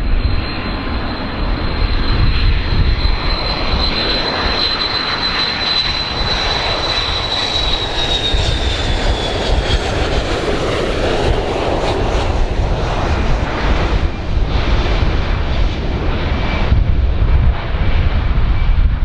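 Boeing 727's three Pratt & Whitney JT8D turbofans flying past low on approach: a loud, steady jet roar with a high whine that slowly falls in pitch about halfway through as the plane goes by.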